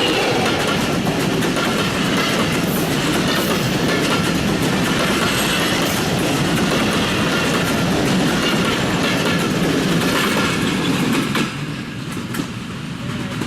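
Passenger coaches of an express train rolling past close by, with a loud rush and the clickety-clack of wheels over rail joints. The noise drops off sharply about eleven seconds in.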